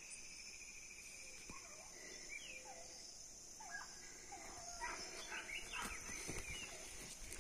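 Pack of hunting hounds giving tongue on a paca's trail, heard from afar as faint, wavering bays. They come thicker and a little louder from about halfway through as the chase draws nearer.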